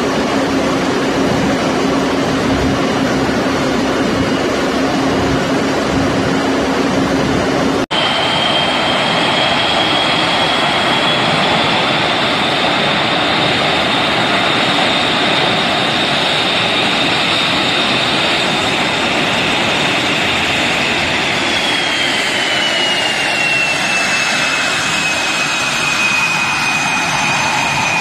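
Jet engine of an HAL Tejas, a GE F404 turbofan, running on the ground: a loud rush of exhaust noise with a steady low hum, then after a cut about eight seconds in a high whine that climbs slightly and later sinks to a lower pitch as the engine settles.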